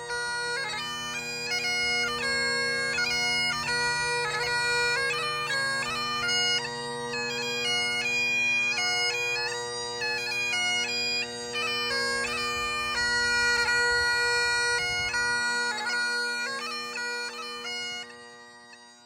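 Great Highland bagpipe playing a tune over its steady drones, fading out near the end.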